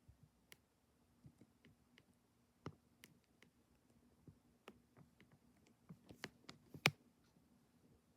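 Nutone Slimeline ceiling fan running with a faint steady hum, under scattered irregular small clicks and taps, the sharpest about seven seconds in.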